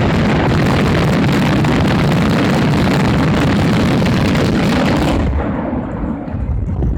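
Fireworks in a dense barrage: a continuous, unbroken run of bursts and crackle that cuts off suddenly about five seconds in.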